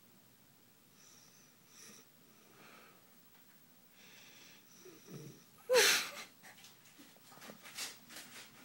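A sleeping woman breathing with faint wheezy breaths a few times, then one loud short snore about six seconds in, followed by a few shorter breathy sounds.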